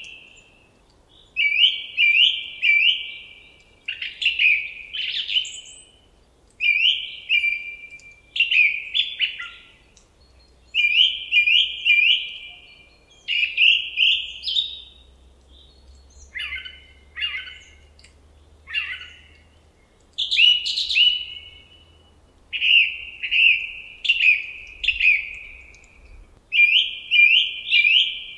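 A songbird singing loud, short phrases of quickly repeated chirping notes, one phrase about every two seconds.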